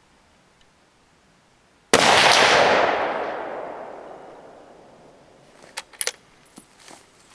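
.30-06 rifle firing a single shot, a sharp crack about two seconds in that rolls away in a long echo over about three seconds. A few short clicks follow near the end.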